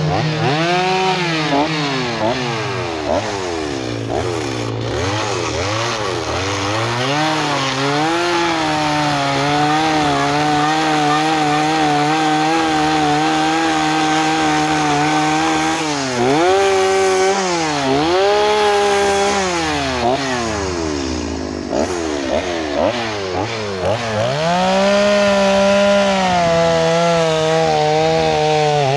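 Gas chainsaw cutting into a log, its engine revving up and dropping back repeatedly as the bar shaves wood away, holding at high revs for several seconds at a time.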